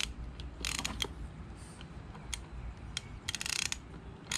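Hand ratchet clicking as a nut is run down onto the starter's positive cable terminal: a few separate clicks, then a quick run of clicks a little past three seconds in.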